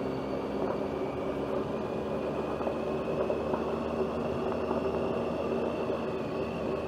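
Motorcycle riding along at a steady speed: the engine runs evenly under a constant noise, with a faint high whine that rises slightly and then holds.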